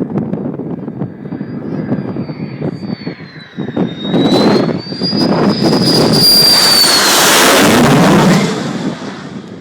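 An F-16 fighter jet's single engine during a low flyby. The rushing noise builds about four seconds in and stays loud for several seconds. A high whine rides on it, holds, then drops in pitch, and the sound fades near the end.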